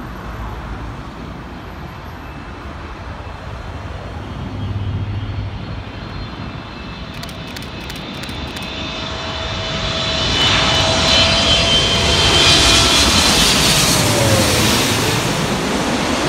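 A Boeing 777-300ER's twin GE90 turbofans on final approach, passing low overhead: jet rumble and a high fan whine that grow louder from about eight seconds in and peak near the end. As the plane goes over, a whining tone drops in pitch.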